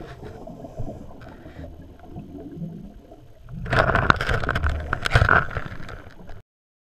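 Scuba regulator exhaust bubbles heard through an underwater camera housing over a low water rumble. A long burst of bubbling and crackling comes about four seconds in, and the sound cuts off suddenly near the end.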